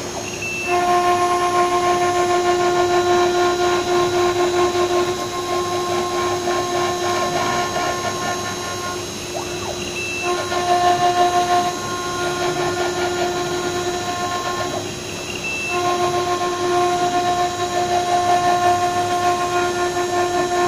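CNC milling machine cutting brick: a steady whine of several held tones from the spindle and cutter. The whine breaks off briefly into a rougher noise twice, about halfway through and again a few seconds later.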